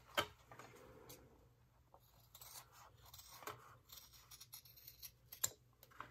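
Fabric scissors cutting through two layers of fabric along a curved line: a series of faint, separate snips, the sharpest just after the start.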